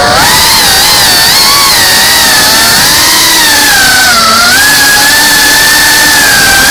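FPV drone's brushless motors and propellers whining as picked up by the onboard camera, the pitch wavering up and down with the throttle, over a loud rush of air noise.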